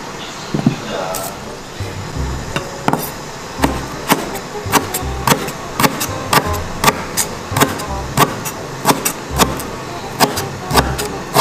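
Background music with a steady beat: sharp percussive hits about twice a second over a regular bass pulse.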